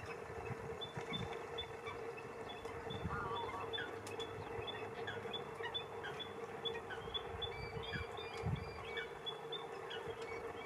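Small birds singing in the background: a run of short high notes repeated quickly, with a few lower falling notes among them. Under them runs a steady low hum, with a few soft low thumps.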